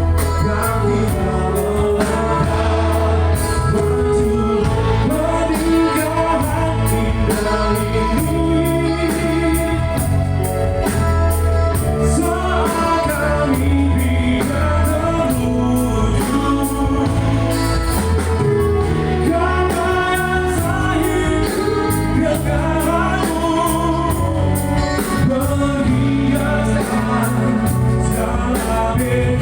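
A song with a steady bass line and accompaniment, and sung vocals.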